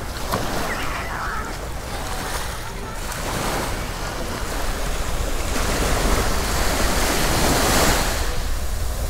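Sea waves washing onto a beach, a continuous rush that swells louder about six to eight seconds in, with wind rumbling on the microphone.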